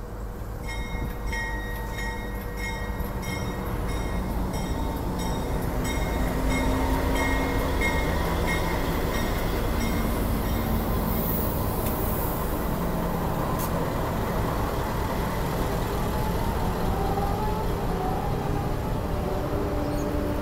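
Two NR-class diesel-electric locomotives hauling the Great Southern passenger train roll past close by. Their engines and wheels on the rails grow louder over the first several seconds, then the silver carriages clatter steadily by. A high, pulsing ringing tone sounds through the first eight seconds or so.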